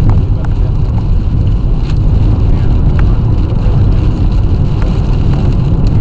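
Steady loud low rumble inside a moving car's cabin: road and engine noise with wind pushing against the car, and a few faint clicks.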